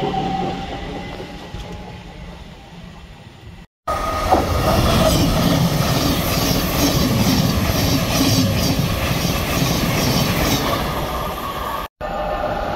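An electric train's motor hum and running noise fading away as it pulls out. Then a Thameslink Class 700 electric multiple unit runs past close by, a loud steady rush of wheels on rail with a regular clatter about twice a second as the wheels cross rail joints.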